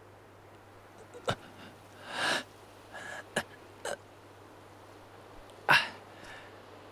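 A man in pain breathing hard and letting out a few short gasps and grunts, the loudest about six seconds in.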